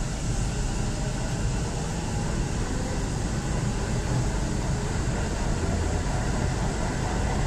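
Namma Metro train heard from inside the coach, running with a steady low rumble as it pulls out of an elevated station.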